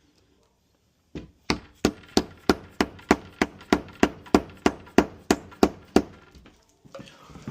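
A hammer striking a wood chisel about fifteen times in a steady rhythm, about three blows a second, as the chisel cuts a lock mortise into the edge of a wooden door. The blows start about a second in and stop near the end.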